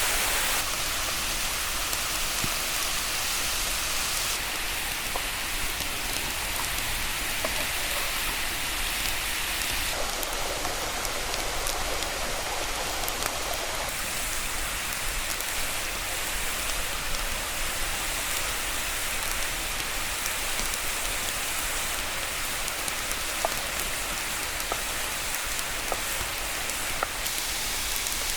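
Steady rushing water of a waterfall, a dense, even hiss whose tone changes abruptly a few times, with occasional faint clicks over it.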